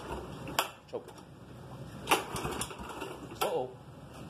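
Pull-start attempts on a Toro walk-behind mower's engine: three short, sharp pulls about a second and a half apart, each with a brief falling whir. The engine does not catch.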